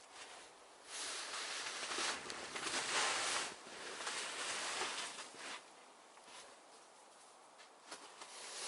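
Snow being scraped and pushed off a shelter: about four seconds of crunching and scraping, then quiet, with a short burst again near the end.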